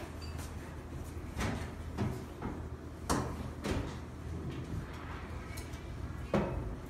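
About five short, sharp knocks and clicks scattered over a steady low hum of room noise, with the sharpest just after three seconds in and another near the end.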